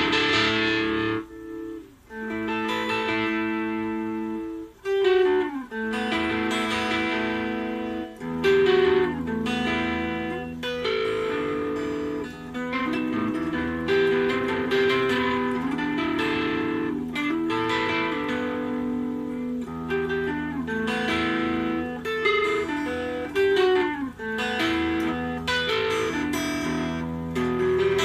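Ibanez ART300 solid-body electric guitar being played, a continuous passage of picked single notes and chords with a few brief gaps between phrases.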